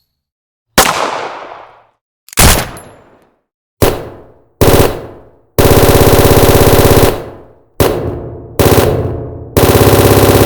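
Gunshot sound effects: several single firearm shots, each with a decaying echo tail, broken by two long bursts of rapid automatic fire.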